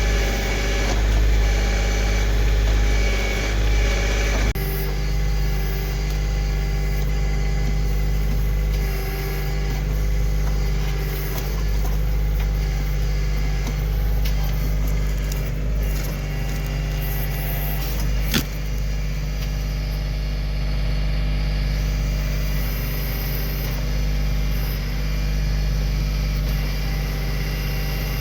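Kioti CK2610 compact tractor's three-cylinder diesel engine running steadily, its note shifting about four and a half seconds in. A single sharp knock comes near the end of the second third.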